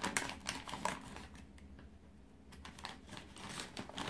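Faint crinkling and crackling of a plastic postal satchel being handled, in many short crackles, with a quieter second in the middle.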